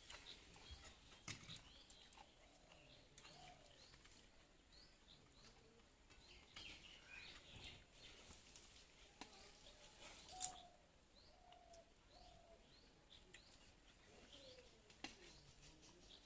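Faint small-bird chirps repeating throughout, with a few sharp clicks scattered among them, the loudest about ten seconds in.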